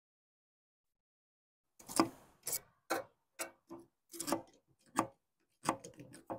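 Silence for nearly two seconds, then a run of irregular sharp clicks and knocks, about two a second.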